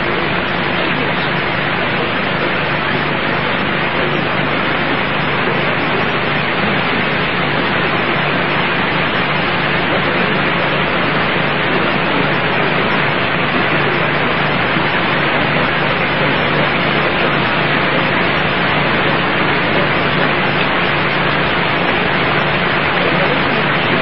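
Steady hiss with a low hum beneath it, even and unchanging in level: recording noise with no speech.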